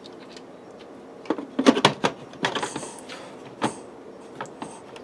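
Lid of an 8-quart electric pressure cooker being set on the pot and twisted to lock: a run of clunks and clicks with a short scraping slide, from about a second in to near four seconds.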